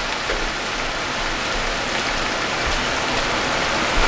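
Diced vegetables (mushrooms, onion, peppers, tomato) sizzling in a hot frying pan, a steady hiss.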